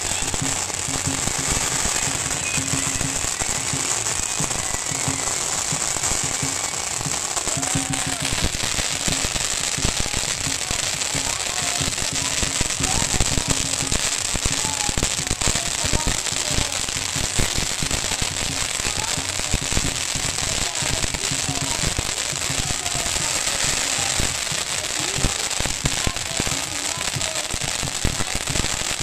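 Hanging strings of Chinese firecrackers exploding in a dense, continuous rapid-fire crackle of small bangs.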